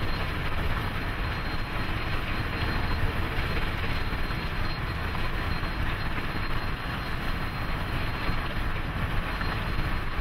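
Union Pacific 844, a 4-8-4 Northern steam locomotive, running at speed: a steady, continuous roar of exhaust and running gear with no separate chuffs.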